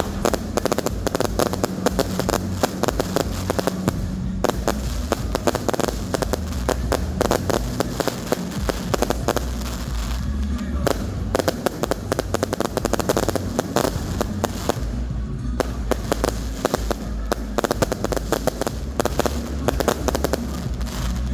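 Fireworks crackling with rapid, dense pops throughout, with music underneath.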